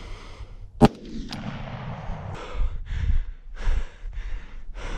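A single rifle shot fired at a feral hog, one sharp loud crack about a second in, with a faint click just after it. It is followed by a run of short noisy sounds, about two a second.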